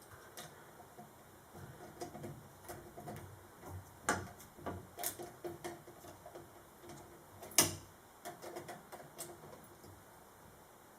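Scattered light clicks and small knocks of ceiling-fan parts and tools being handled, the sharpest click about seven and a half seconds in.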